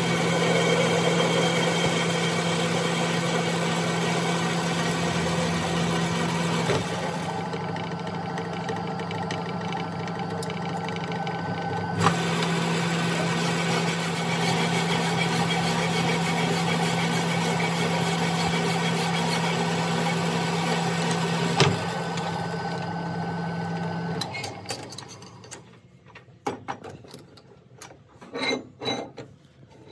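Metalworking lathe running steadily with a constant hum, its chuck spinning a workpiece, with three sharp clicks along the way. About 24 s in the motor is switched off and the lathe winds down to a stop, followed by scattered metal knocks as the chuck key is worked in the four-jaw chuck.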